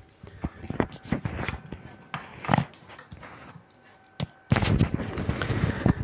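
Handling noises at a tabletop: a series of light, separate knocks and clicks, then from near the end a steadier rustling as a sheet of paper is slid across the table.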